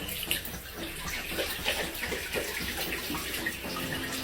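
Running water with small irregular splashes.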